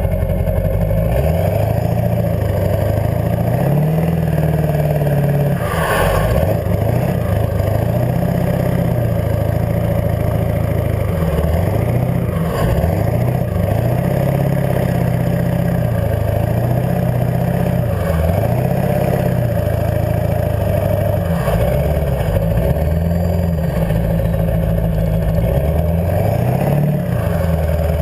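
Ford 7.3-litre Power Stroke turbodiesel V8 running through straight exhaust stacks. Its pitch climbs and drops back again several times as it revs, with a few brief knocks along the way.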